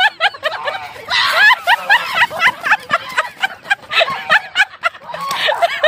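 Domestic goose honking in a rapid, irregular run of short high calls, several a second, as it attacks with wings spread.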